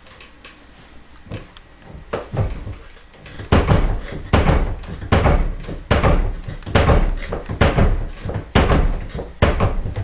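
Reloading press worked stroke after stroke with a case stretcher in the die, lengthening a .45-70 brass case: a few light knocks, then heavy metal clunks a little under one a second.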